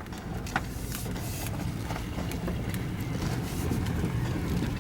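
Four-wheel-drive engine running low and steady, growing slightly louder, with scattered short clicks and knocks.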